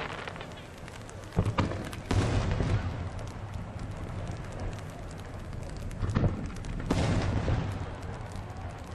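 Aerial firework shells going off: two pairs of loud booms, the first pair about a second and a half in and the second about six seconds in, each boom trailing off briefly.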